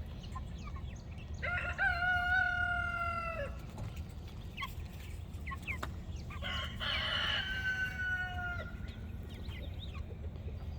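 A rooster crowing twice, each crow a long drawn-out call of about two seconds, with short clucks and chirps from other chickens around it over a steady low rumble.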